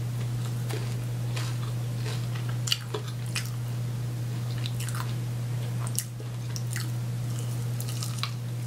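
Close-miked chewing of a chicken wing: scattered wet mouth clicks and smacks with a bite near the end, over a steady low hum.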